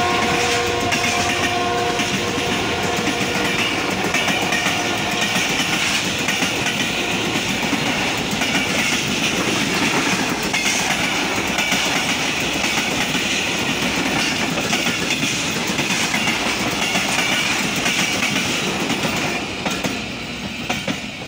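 An express train running through the station at high speed, its locomotive horn sounding a chord that cuts off about two seconds in. The rush and rapid wheel clickety-clack of the coaches passing follow, easing off near the end.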